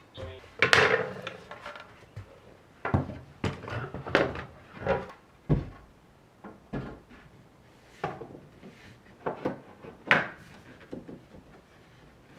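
Household objects being handled and set down: a series of irregular wooden knocks and clatters, the loudest about half a second in and again near ten seconds.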